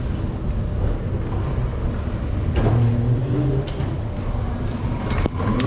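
Escalator running: a steady low mechanical rumble heard from the step, with a single click about five seconds in.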